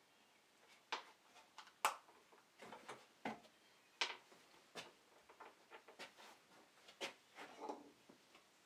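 Scattered light knocks, clicks and short rubbing sounds of hand work with wood, leather and tools, irregularly spaced, the sharpest knock about two seconds in.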